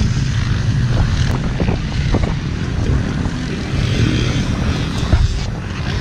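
Dirt bike engines idling while stopped; the nearest is a Yamaha YZ250X two-stroke.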